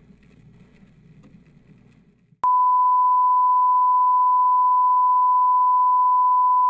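A steady, single-pitched test-pattern beep of the kind played with television colour bars starts abruptly about two and a half seconds in and holds at an even level. Before it there is only a faint crackle with a low hum.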